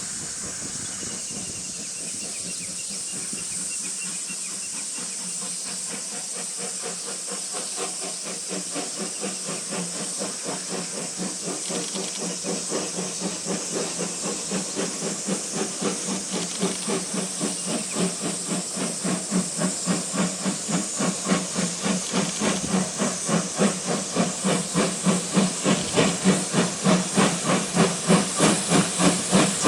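C58 steam locomotive working hard up a grade, its exhaust chuffing in a steady beat of about two to three a second over a hiss of steam, growing louder as it approaches.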